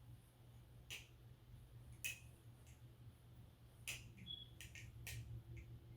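Faint, scattered clicks of an aluminum BBFirefly balisong as it is flipped and fanned, its handles and pivots ticking lightly about five times.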